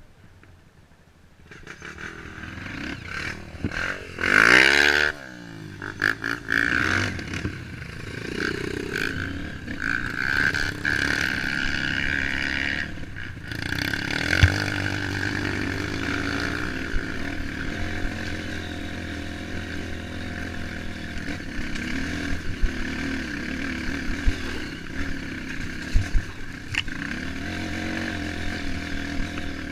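Off-road motorcycle engine starting to rev about a second and a half in, with a sharp rise and fall in revs a few seconds later, then running steadily on the trail, with occasional knocks and clatter.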